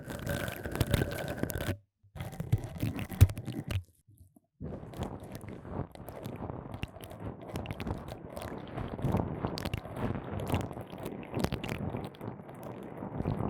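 Fuzzy chenille pipe cleaners rubbed and scraped against the microphone, a close, crackling scratch full of small clicks. Two short takes are broken off by sudden silences. Continuous rubbing then runs from about five seconds in.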